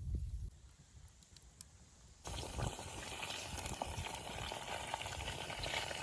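Food sizzling and spitting in hot oil in a kazan. The sound is a dense, crackly hiss that starts abruptly about two seconds in, after a quieter stretch that opens with a low rumble.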